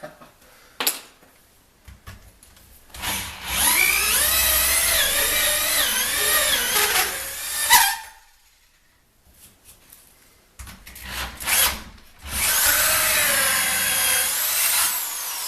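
Hole saw on a Ryobi drill cutting into a metal-clad door: a high, ringing squeal that wavers in pitch, in two long cuts with a pause and a few clicks between them as the saw is backed out.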